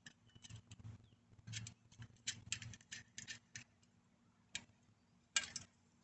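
Faint, irregular light metallic clicks and ticks of a lock nut and washer being fitted and turned onto the front brake assembly's mounting bolt, many in quick succession at first, then a few more near the end.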